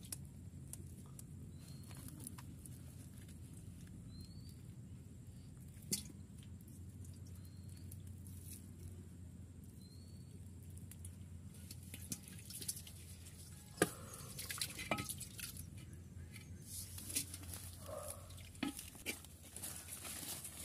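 A bird gives a short rising chirp every two to three seconds over a steady low hum, with scattered sharp clicks and taps from fish being handled on wet mud. The taps and rustles come thicker in the second half.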